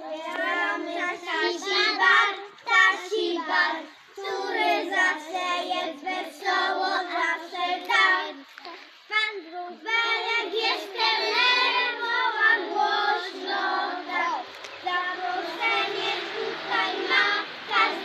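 A group of young children singing a song together, with short breaks between lines.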